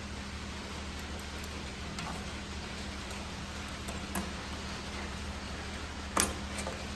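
Small metallic clicks as a steel brake return spring is worked onto drum brake shoes with needle-nose pliers, over a low steady hum. One sharper click comes about six seconds in, as the spring hooks into place.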